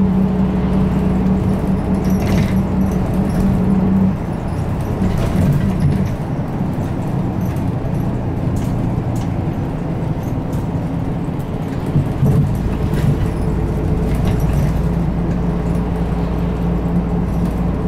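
Interior running sound of an Isuzu Erga Mio (PA-LR234J1) city bus: the four-cylinder turbo-diesel drones steadily under throttle. About four seconds in the drone drops away, leaving mostly road and tyre noise. The engine note picks up again near the end, with a few light rattles from the cabin.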